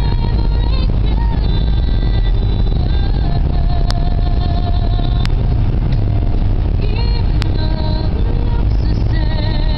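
Inside a moving car's cabin: a steady low rumble of engine and tyre noise, with quieter music from the car stereo playing over it and a few sharp clicks.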